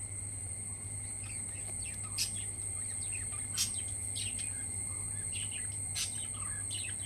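Birds chirping in short, scattered calls over a steady high-pitched insect drone.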